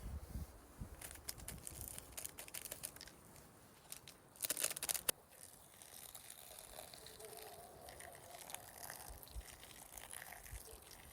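Rustling and crinkling handling sounds with scattered small clicks, loudest in a brief crinkling burst about four and a half seconds in.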